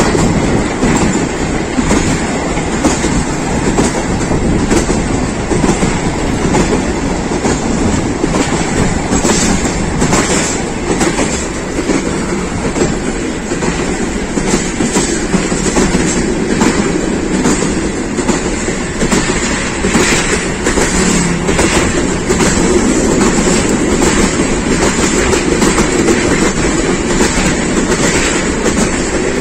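A passenger train running at speed, heard from inside a coach at an open window: a steady rumble of wheels on rails with frequent sharp clicks as the wheels pass over rail joints.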